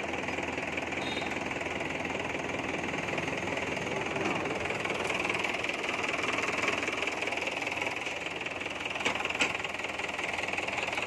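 Mahindra tractor's diesel engine running steadily, powering a PTO-driven jute ribbon extraction machine. There are a few sharp clicks near the end.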